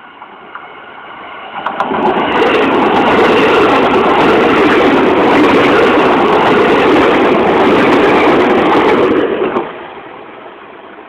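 Electric train passing over a level crossing at speed: a loud rush of wheels on rail that builds sharply about two seconds in, holds for about eight seconds, and falls away quickly near the end.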